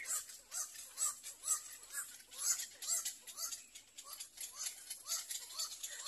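Little egret chicks in the nest giving begging calls: short, hissy chirps repeated about twice a second.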